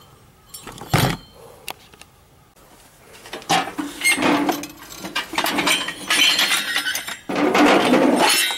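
Scrap aluminium heatsinks clinking and clattering against each other in a plastic crate as it is handled. There is a single knock about a second in, and a longer, louder rattle near the end.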